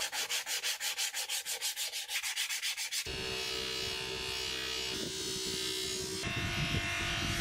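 Quick back-and-forth rubbing strokes, about six or seven a second, of abrasive being worked over a lighter's metal case. About three seconds in they give way abruptly to a steady whirring noise with a low hum.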